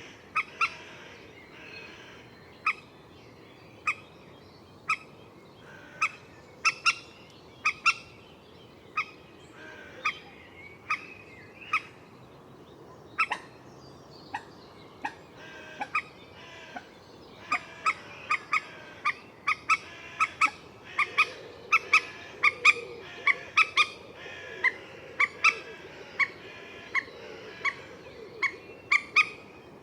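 Common moorhen giving short, sharp calls, repeated about once a second at first and quickening to about two a second past halfway, with fainter bird chatter behind.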